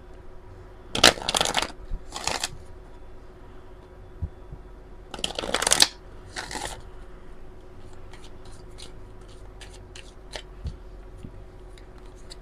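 A deck of oracle cards being shuffled by hand: brisk riffles about a second in and again at two seconds, then a longer, louder shuffle around five to six seconds. After that comes a string of light clicks as the cards are fanned out.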